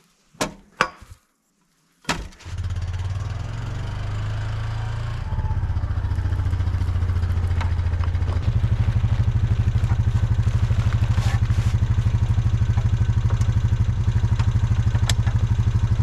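A few clanks from a snowplow blade and frame being handled. About two seconds in, an ATV engine starts and runs steadily, stepping louder twice, around 5 seconds and again around halfway, before holding even.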